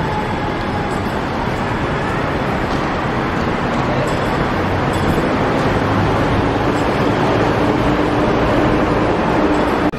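Steady, loud background noise of traffic and activity at an airport terminal's open-air curbside, with a faint steady hum. It grows slightly louder and cuts off suddenly just before the end.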